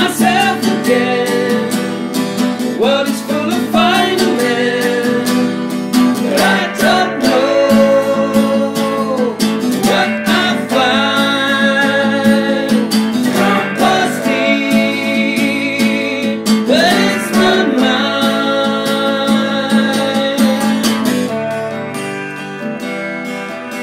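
A song played on acoustic and electric guitars, strummed and picked, with a man singing in stretches over them.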